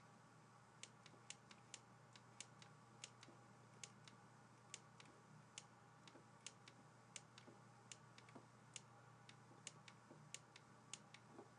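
Faint, irregular clicks of a stylus tip tapping on a drawing tablet while handwriting is drawn, about two a second, over a low steady hum.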